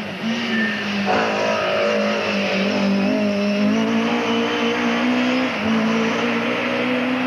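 Hill-climb race car engine revving hard as it accelerates uphill, its pitch shifting a couple of times. The sound changes abruptly about a second in.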